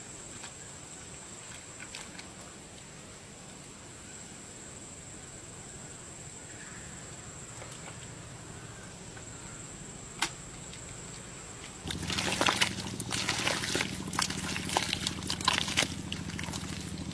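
Water splashing and sloshing. It starts suddenly about twelve seconds in as a busy run of splashes and clicks over a low hum, after a faint steady hiss with one sharp click.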